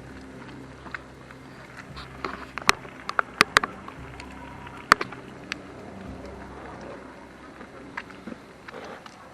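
A low steady mechanical hum like a motor running, with a few sharp clicks or knocks, clustered about three to five seconds in.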